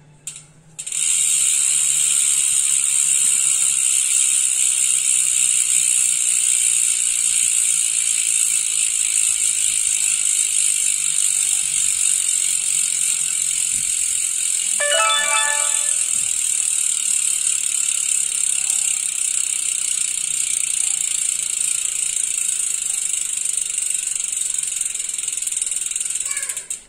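Freehub of a carbon bicycle wheel buzzing steadily as the wheel is spun by hand and coasts: the pawls ratcheting in a fast, high-pitched whirr. It starts about a second in and cuts off near the end, when the wheel is stopped.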